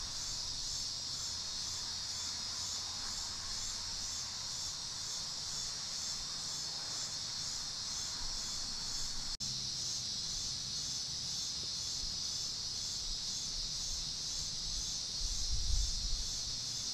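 Outdoor insect chorus: a steady, high-pitched shrill buzz that pulses evenly throughout. It cuts out for an instant about nine seconds in, and a low rumble comes up briefly near the end.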